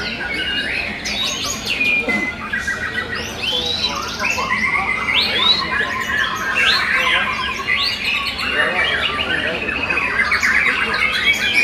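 Young white-rumped shamas singing, several at once in a dense, unbroken run of overlapping whistles, chatters and rapid trills.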